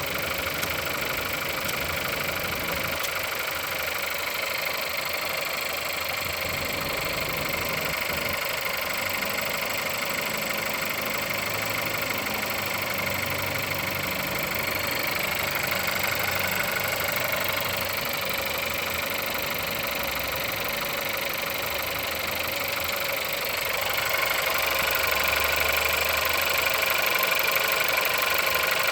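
Car engine idling after a cold start, with a knock coming from inside the engine at 176,000 on the odometer. The running grows a little louder near the end.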